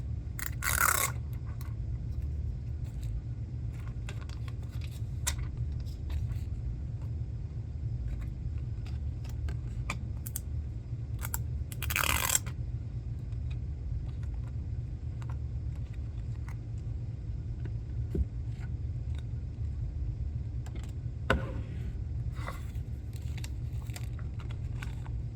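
Screen protector kit packaging being handled: scattered scrapes and clicks, with two louder rustles about a second in and about twelve seconds in, over a steady low hum.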